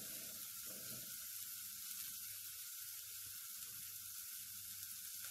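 Sliced onions frying in hot oil in an aluminium pot, a steady sizzle as they brown, stirred with a wooden spoon at first.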